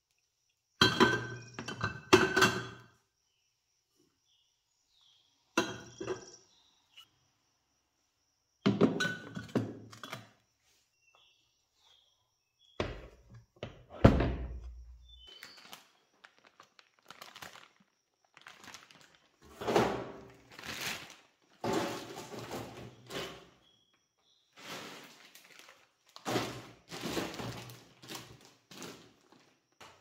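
Handling sounds from a restored wooden ice box and its zinc liner: a series of sharp knocks and clanks, with one heavy low thunk about 14 seconds in. Softer scraping and rustling bursts follow.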